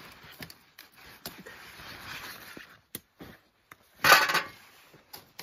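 Rhubarb stalks being cut with a knife and pulled from the plant: rustling of the large leaves with a few small snaps and clicks. About four seconds in there is a louder, brief rustle as a cut stalk is swung out toward the tray.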